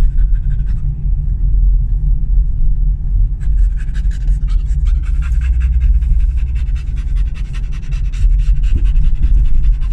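Dog panting quickly, close by, over the steady low rumble of a car on the road.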